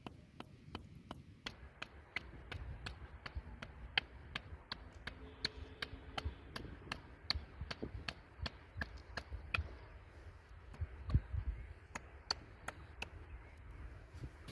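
Wooden mallet knocking on the top of a bamboo stake, driving it into the ground: a steady run of sharp knocks, about two to three a second, that stops shortly before the end.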